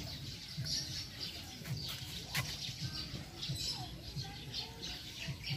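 Small birds chirping, many short high chirps with a few lower whistled notes in the second half.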